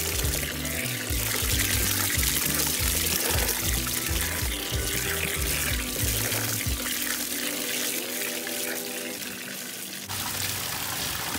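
Water from a garden hose pouring and splashing into a plastic tub of sorrel leaves as they are rinsed, under background music with a beat.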